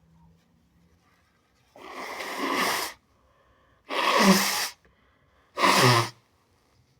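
A person sneezing: three loud bursts in about four seconds, the first longer and building up, the last two shorter and sharper.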